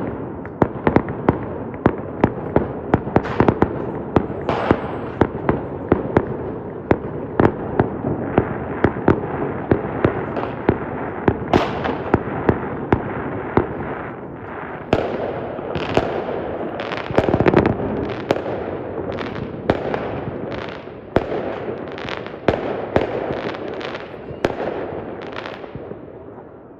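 Fireworks going off in a rapid, overlapping string of bangs over continuous crackling. After about halfway they become more spaced-out, louder reports, then thin and fade near the end.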